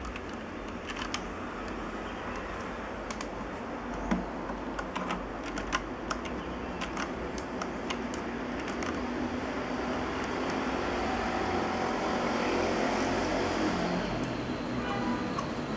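Plastic LEGO Technic gears and toothed racks clicking and rattling as the sliding-door mechanism is turned and handled, with scattered sharp clicks. A steady background noise grows louder in the second half.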